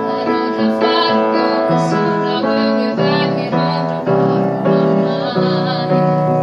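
Blues piano chords played in a steady rhythm, changing about twice a second, with no singing.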